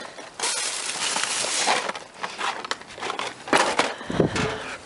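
Cardboard boxes and packaging rustling, scraping and crumpling as they are handled and shifted about, with a sharp clatter at about three and a half seconds and a dull thump just after.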